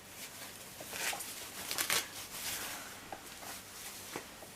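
Packaging rustling as an appliance is unpacked by hand: a few soft swishes with short light clicks and knocks.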